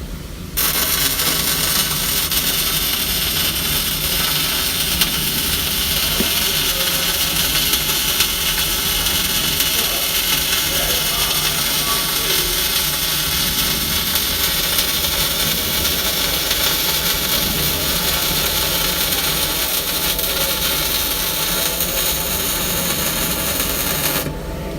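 MIG welding arc running one continuous bead, a steady loud noise that strikes about half a second in and cuts off just before the end, while the welder tries to hold a small 1/8-inch bead.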